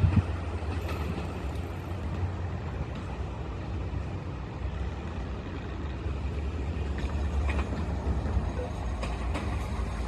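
Low, steady rumble of a JR Kyushu KiHa 200 diesel railcar and an 817 series electric train running away into the distance side by side, with a few faint clicks near the end.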